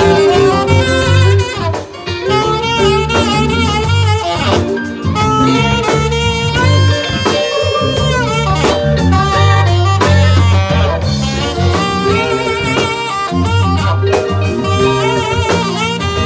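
A live band playing: a saxophone takes the melody with a wavering vibrato, holding one long note about halfway through, over electric guitar, bass and drum kit.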